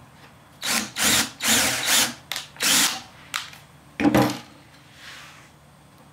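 Cordless drill run in several short bursts, reaming out a hole in a clamped joint piece to a larger size.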